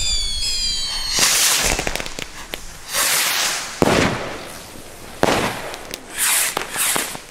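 Firework rockets going off: a rising whistle as a rocket climbs, then a string of loud bangs and crackling bursts as the rockets break in the sky.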